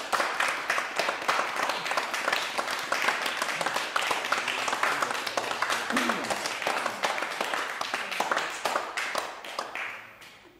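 Audience applauding, a dense patter of many hands clapping, which dies away near the end.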